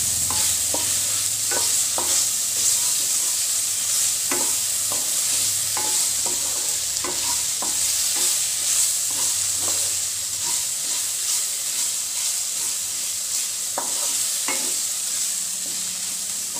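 Onion, tomato and ginger-garlic paste sizzling in hot oil in a non-stick kadhai, stirred constantly with a wooden spatula that scrapes and taps against the pan at irregular moments over a steady frying hiss.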